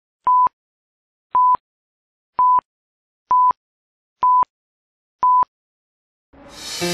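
Film-leader countdown beeps: six short, identical, steady tone beeps about a second apart, one per counted number, each starting and stopping with a slight click. Music swells in near the end.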